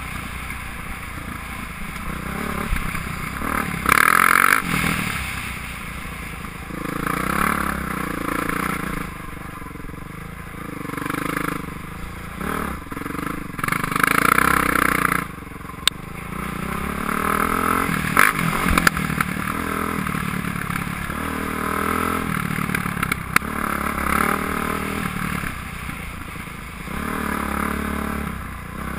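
Dirt bike engine riding a rough trail, its pitch rising and falling as the throttle opens and closes, with louder revs about 4 and 14 seconds in. A few sharp knocks sound in the second half.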